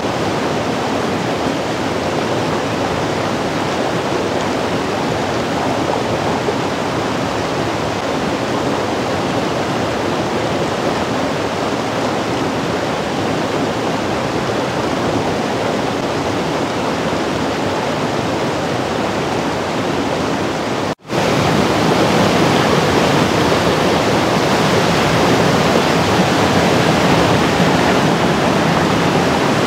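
Steady rushing of a rocky mountain stream, whitewater pouring over and between boulders. About twenty seconds in, the sound cuts out for an instant and returns a little louder.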